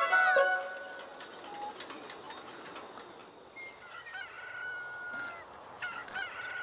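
A short music cue ends just after the start. Then a rooster crows twice, about three and a half seconds in and again near the end, each call rising and then held for about a second.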